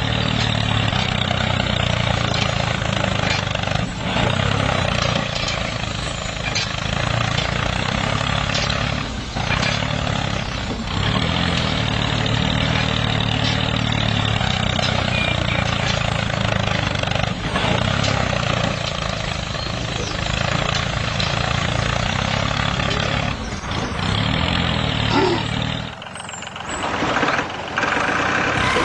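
A vehicle engine running steadily with a low, even rumble. It drops away briefly near the end.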